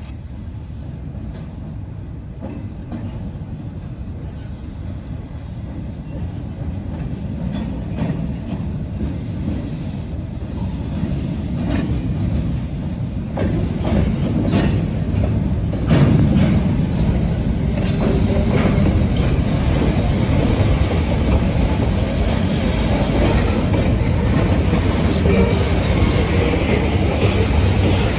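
Freight train (a diesel locomotive with a cut of freight cars) approaching on the line. Its low rumble grows steadily louder, with scattered sharp clicks of wheels over the rail joints.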